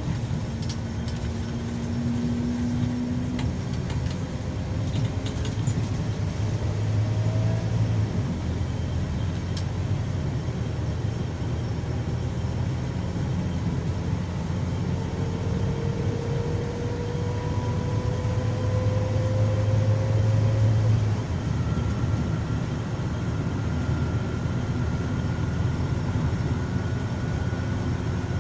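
Scania K340EB coach's engine and road noise heard inside the passenger cabin while under way. The engine note climbs slowly, falls back sharply about eight seconds in and again about two-thirds of the way through, as at gear changes, then climbs again.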